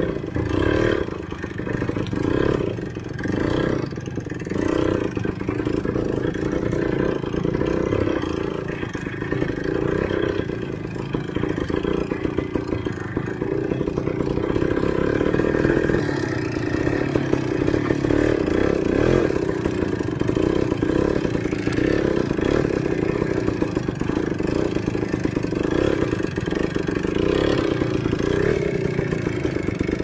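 Enduro motorcycle engine running under load over rough ground, the revs rising and falling again and again, with steady clattering and knocking from the bike. The revs swing most in the first few seconds and hold steadier from about halfway through.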